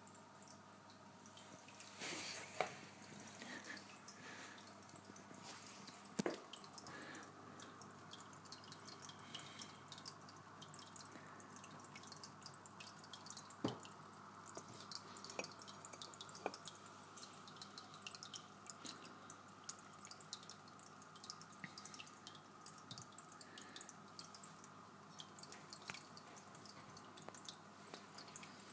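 Faint water dripping and trickling in a marine nano aquarium, a steady patter of small drips with a few louder clicks.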